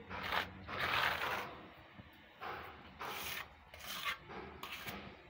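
Trowel scraping thick texture paint onto a rendered wall in a series of short strokes, each under a second, with brief pauses between them.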